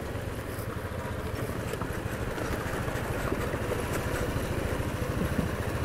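Honda Activa scooter riding over a rough gravel and dirt road: its engine running steadily under a rumble from the tyres and road, slowly growing a little louder.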